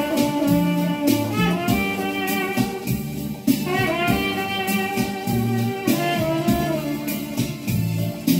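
Trumpet playing a slow melody in a few long held notes with vibrato, over a backing track with a steady beat.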